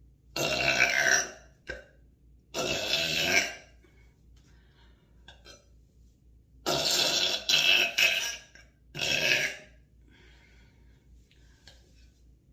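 A woman burping hard: five loud belches, each under a second long, with the third and fourth coming almost back to back.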